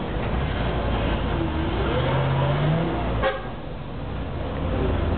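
A tram running along its rails heard from inside: a steady low rumble, with a whine that rises in pitch over a second or so and a single sharp knock about three seconds in.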